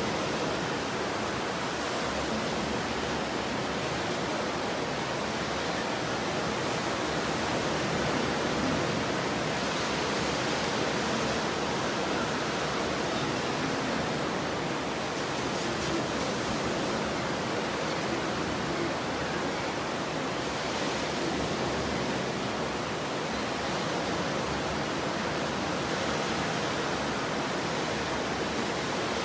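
Ocean surf: a steady wash of breaking waves, swelling slightly every five seconds or so.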